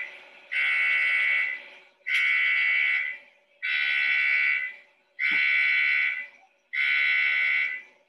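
Crash-test sled facility's electronic warning alarm sounding a series of long, identical beeps, about five, each a little over a second long with short gaps: the warning before a sled test run is launched.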